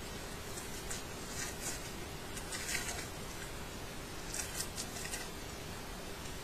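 Trading cards sliding and flicking against one another as a booster pack is leafed through: several short, crisp swishes over a steady hiss.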